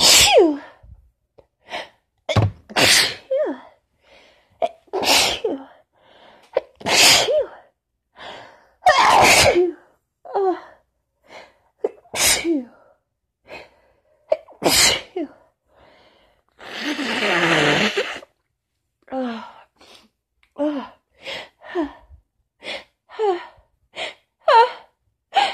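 A woman sneezing again and again in a fit of strong sneezes, brought on by the tail end of a cold combined with allergies. There are about seven sudden sneezes, each with a quick gasping inhale, then a longer noisy blast, then a run of short gasping breaths.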